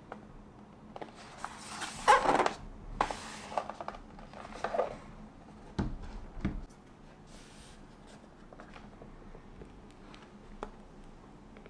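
Handling noises of an aluminium MacBook Pro: rustling as it is turned over in the hands, then two soft thuds as it is set down on a desk mat a little past halfway. A faint tap comes near the end.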